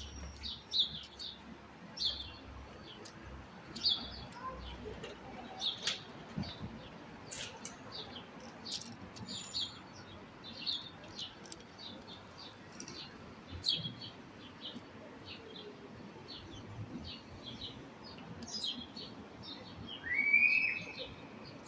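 Small birds chirping in short, high notes, over and over. Near the end there is one louder, longer call that rises and then holds.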